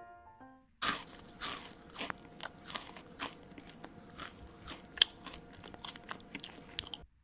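A young rabbit chewing dry hay: fast, irregular crisp crunching of stalks, starting about a second in and stopping abruptly just before the end, with one sharper crunch about five seconds in. Soft piano music fades out in the first second.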